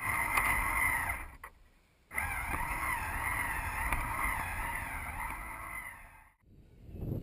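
Electric drive motor and plastic gear train of a Lego Technic model truck whining as it drives, the pitch wavering with load. It cuts out for under a second near the start, then runs again and fades away near the end.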